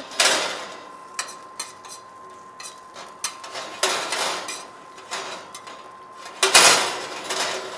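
Metal sheet pan of roasting asparagus shaken and shifted on the oven rack, with metal tongs clinking and scraping in the pan. There are three bursts of rattling and scraping with clicks between them, the loudest near the end.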